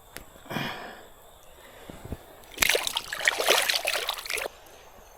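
Water splashing for about two seconds, starting a little past the middle, preceded by a brief softer rustle.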